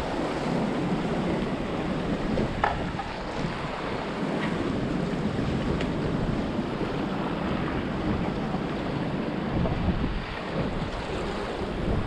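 Sea waves washing and splashing against the concrete tetrapods of a breakwater, with wind buffeting the microphone in a steady rushing noise.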